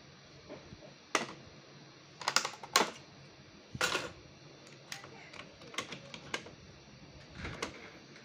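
Plastic clicks and knocks as a Brother MFC-J3530DW's printhead is unclipped and lifted out of its plastic carriage by hand. There are a handful of separate sharp clicks, the loudest bunched about two to four seconds in.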